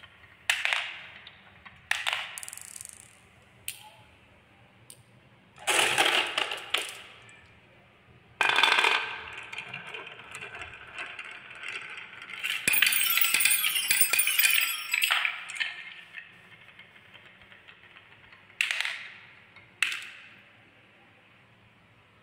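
Marbles and wooden balls rolling and clattering down the wavy grooves of a wooden marble run, knocking against the wood and each other. There are separate sharp clacks and a long, busy rattle partway through.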